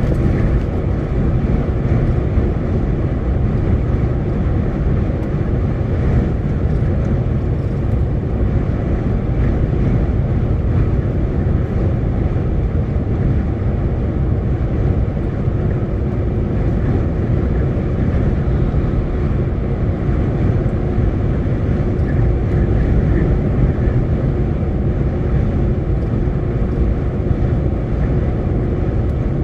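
Truck on the move, heard from inside the cab: a steady engine drone and road rumble.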